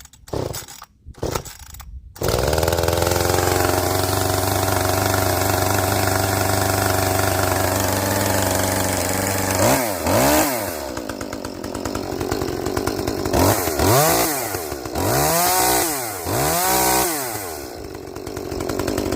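Echo CS-2511P small two-stroke chainsaw, in stock form, pull-started with a couple of short pulls and catching about two seconds in, then idling steadily. From about halfway on, the throttle is blipped several times, each rev rising and falling back to idle, as a test of a saw whose owner thinks it lacks power.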